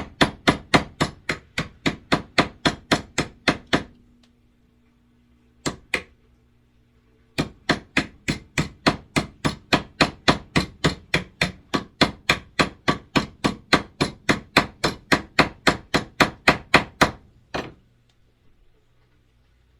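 Hammer blows setting a rivet through a sheet-metal gauntlet plate and leather, a fast even run of about three to four strikes a second. The run stops for about three seconds, broken by a single blow, then resumes for about ten seconds and ends with one last strike.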